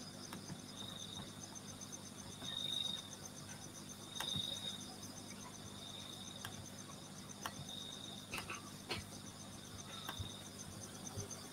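Faint insects chirping: a high chirp about once a second over a fainter, fast, even trill, with a few soft clicks.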